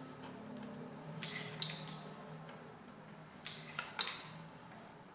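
Sharp metal clinks, about five, as a bottom bracket tool is fitted onto the new bottom bracket cup and turned to thread it in, over a faint steady low hum.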